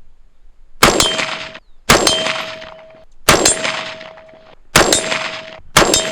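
Colt SP1 AR-15 rifle firing five single shots about a second apart, each followed by a short metallic ring, typical of a steel target being hit.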